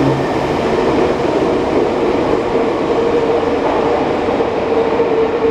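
Subway train running: a loud, steady rush of wheel and track noise with a steady whine, which stops abruptly near the end.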